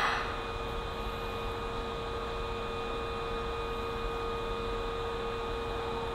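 Osaka Metro 25 series subway train standing at the platform, giving off a steady electrical hum with a few constant whine tones. A loud hiss fades out in the first moment.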